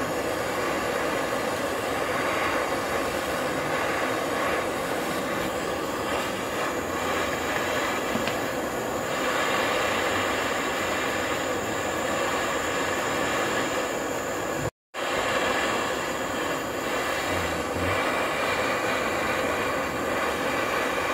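Handheld butane gas torch on a spray-type canister burning with a steady hiss as its flame heats a motorcycle frame tube so that it can be bent. The sound drops out for a split second about two-thirds of the way through.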